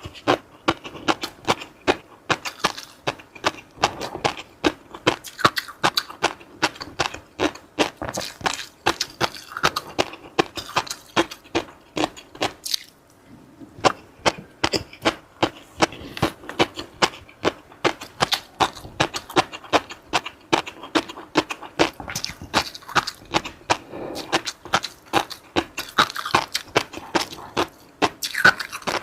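Close-miked eating: chewing and crunching, sharp crisp clicks several times a second, with a brief pause a little under halfway through.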